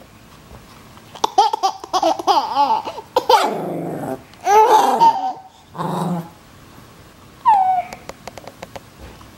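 A small dog growling and barking in play, while a baby laughs and squeals at it.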